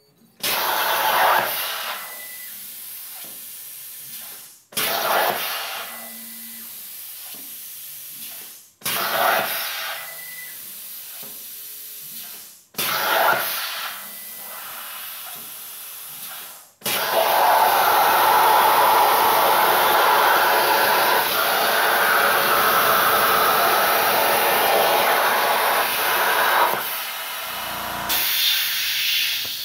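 Hypertherm Powermax 30 XP plasma cutter on a CNC table cutting through the bottom of a steel NEMA 1 electrical enclosure. First come four short cuts, each loud at the start and then easing to a quieter hiss before stopping. Then one long steady cut of about eleven seconds follows, dipping briefly near the end.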